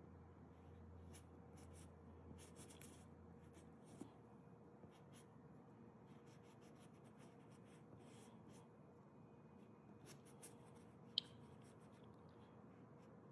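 Faint, irregular scratching of a paintbrush stroking thick paint onto canvas, over a low steady room hum. One sharp click about eleven seconds in.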